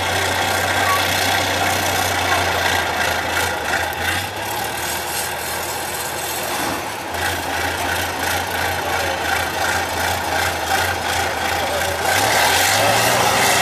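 Tatra 815 trial truck's diesel engine running at low revs under load as it crawls up a steep dirt slope, revving up and getting louder near the end.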